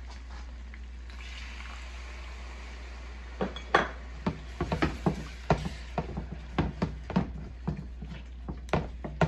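Masala sizzling in a metal pan just after a little water goes in, then a wooden spoon stirring and scraping the pan, with many irregular knocks against the metal from about three and a half seconds in.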